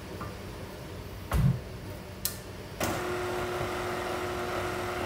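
A tilt-head stand mixer's head is lowered with a thud, a sharp click follows, and a moment later the mixer motor starts up and runs with a steady hum, beating a thin cake batter.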